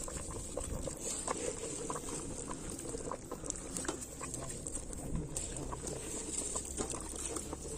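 Pot of biryani water bubbling at a boil over a wood fire, with many small scattered pops and crackles.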